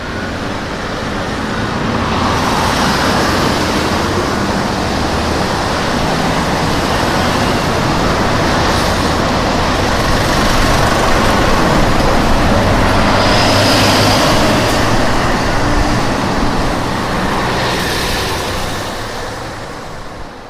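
Steady outdoor roar and hiss, like a street or storm ambience, fading in at the start and fading out near the end.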